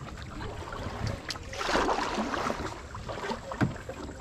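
Kayak paddle strokes splashing in the water, the loudest swish about two seconds in, with a short knock about three and a half seconds in.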